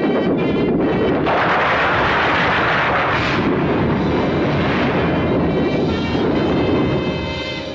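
A long string of firecrackers going off in a continuous dense crackle, easing off near the end.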